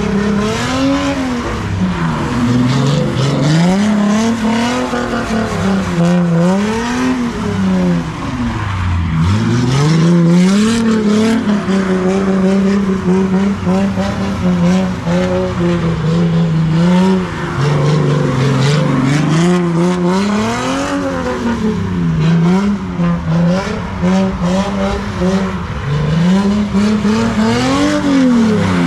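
A car engine revving hard, over and over, climbing and dropping in pitch every few seconds and held at high revs for stretches, with tyres squealing. This is the sound of a car spinning donuts at a street sideshow.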